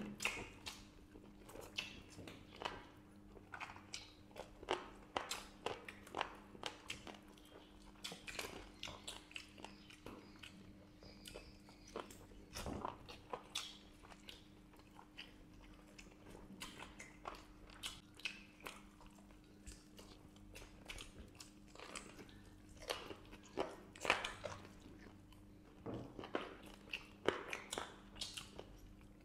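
Two people biting and chewing masala-fried chicken leg pieces, picked up close by clip-on microphones: a string of irregular short eating clicks and smacks, over a faint steady electrical hum.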